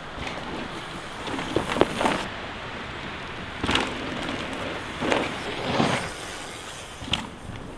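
Downhill mountain bikes riding on dirt trails: knobby tyres rushing and skidding over loose dirt in about five short surges, over a steady hiss of trail noise.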